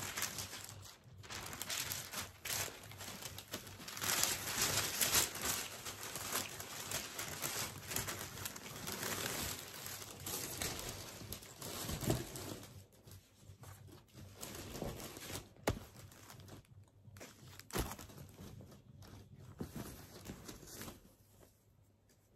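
Tissue paper crinkling and rustling as it is unfolded and pulled out of a gift box, loudest through the first half. Later, softer rustling of a cotton dust bag being handled, with two sharp taps.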